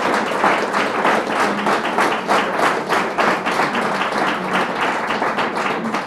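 An audience applauding, many hands clapping together in a dense, steady patter.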